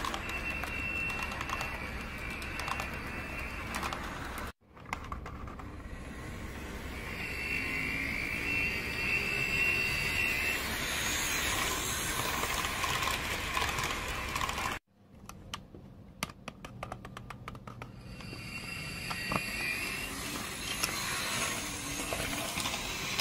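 Model train of double-stack container cars rolling past, its wheels clicking over the rail joints in a steady clatter. A high steady whine comes and goes, and the sound cuts out abruptly twice.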